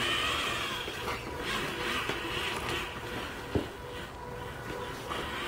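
Pair of small 12 V geared DC motors (Pololu 29:1) on a self-balancing robot whining and changing pitch as they drive the wheels back and forth to hold the robot upright, loudest just after it is pushed. There is one sharp knock about three and a half seconds in.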